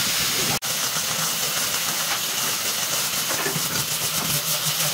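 Angle grinder with a sanding disc running against wood: a steady, loud hiss, broken for an instant about half a second in.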